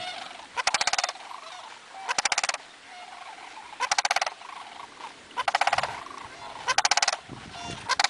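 A flock of sandhill cranes calling: loud rolling, trilled calls about every second and a half, with fainter calls from other cranes in between.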